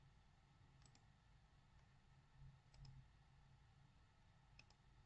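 Near silence with a few faint computer mouse clicks, in quick pairs: about a second in, near the middle and near the end.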